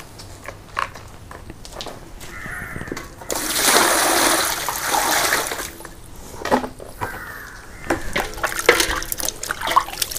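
Water poured into a metal basin over a raw whole chicken, a loud gush lasting about two and a half seconds. Near the end, splashing and slapping as hands wash the chicken in the water.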